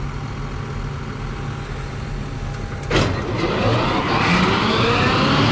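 Tractor engine running steadily. About three seconds in there is a sharp click, after which the running gets louder and busier, as the machine works harder.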